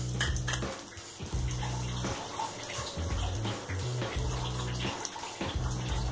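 Curry leaves and green chillies frying in hot mustard oil in a kadhai, with a steady sizzle.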